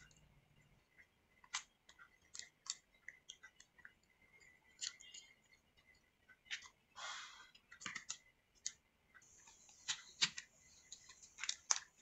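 Small, light clicks and taps of a MacBook Air logic board and its heat sink being handled and seated in the aluminium case, with a brief scrape about seven seconds in and a faint high hiss near the end.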